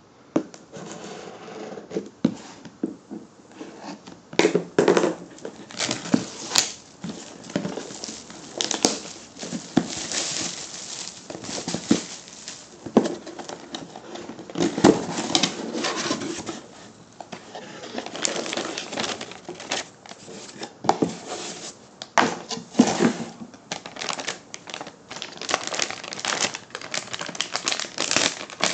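A graphics card's cardboard retail box being handled and opened by hand: irregular tapping, scraping and crinkling of cardboard and plastic packaging.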